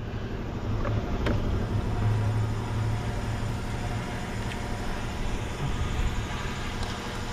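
2011 Jeep Liberty's 3.7-litre V6 idling steadily, a low even hum, with a faint click about a second in.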